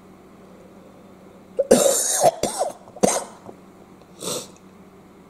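A man coughing and clearing his throat in three bursts: a longer one about two seconds in, then two shorter, fainter ones.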